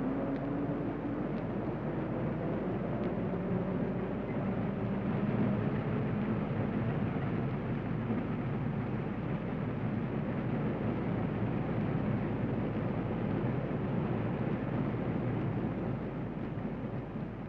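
Steady, dense mechanical rumble of a moving escalator in an Underground station, easing slightly near the end.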